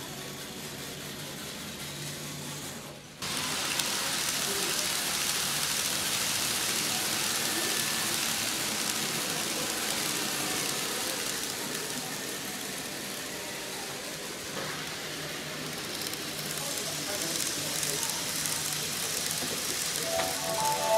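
Steady hiss of an N-gauge JNR 185 series model train running on its track, mixed with indistinct background chatter. The sound drops away and comes back louder about three seconds in. A few sustained musical tones begin just before the end.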